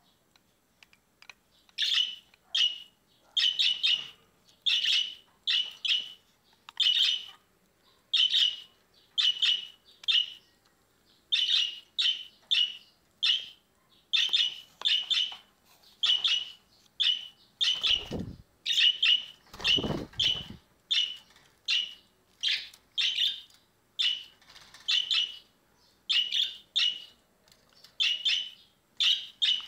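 Budgerigar chirping in short, repeated calls, about one to two a second, with two brief low sounds a little past the middle.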